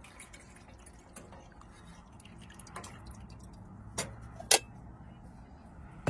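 Thick canned tomato soup plopping and dripping out of a tipped can into a stainless steel saucepan of water. Near the end come two sharp metal clinks about half a second apart as the can knocks against the pot's rim.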